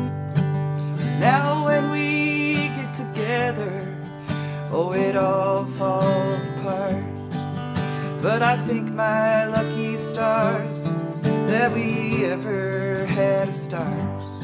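Live acoustic folk music: an acoustic guitar strums steady chords under a lead melody line whose notes swoop up into pitch and waver.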